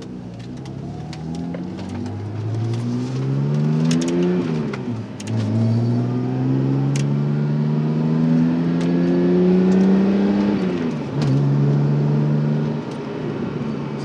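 2007 BMW 328i's inline-six engine accelerating hard through the gears, heard from inside the cabin. Its pitch climbs, falls at an upshift about four and a half seconds in, climbs again for about five seconds, falls at a second shift, then holds steady. The engine pulls cleanly, its misfire cured by a replacement ignition coil.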